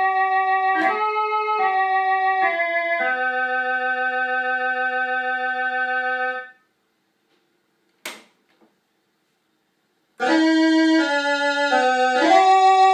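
1970 Orla Carousel vintage keyboard playing held chords that change about every second, with a steady pulsing in the level. The notes stop about six and a half seconds in. A single click comes about a second and a half later, and near ten seconds playing resumes with a brighter tone.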